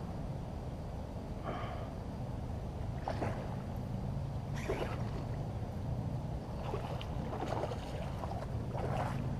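River water lapping and splashing, with several short splashes over a low steady rumble.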